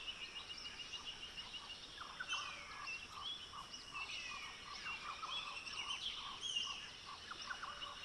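Small wild birds chirping and whistling: quick runs of short repeated notes and sliding whistles, faint, over a light outdoor hiss.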